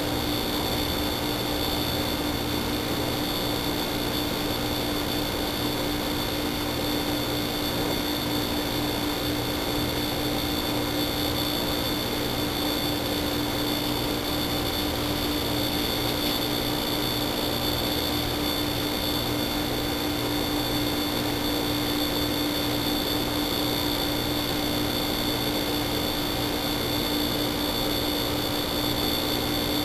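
Steady hiss with a constant electronic whine from a wildlife camera's own microphone and circuitry, unchanging throughout; no knocks or rattles from the trap stand out.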